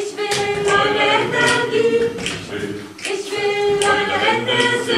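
Several voices singing together a cappella, with held notes and shifting harmonies, and a few short sharp clicks along with them.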